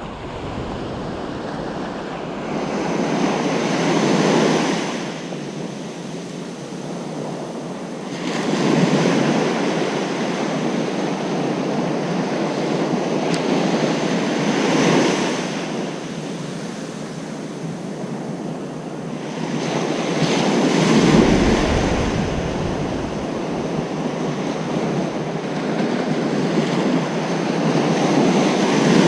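Ocean surf breaking on a beach: a continuous hiss of water that swells with each wave about every six seconds and then eases back.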